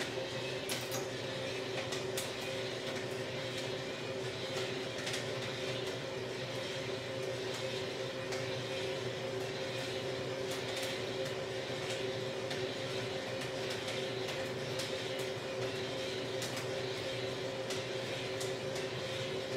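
Small drum coffee roaster running with a steady mechanical hum, while the beans inside pop with scattered, irregular sharp cracks. This crackling is first crack, the cue to lower the burner and open the exhaust valve.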